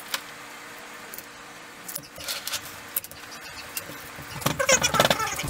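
Handling noise of gloved hands working a silicone heater pad onto an aluminium bed plate: scattered rustles and light metallic clinks, a cluster of them near the end, over a faint steady hum.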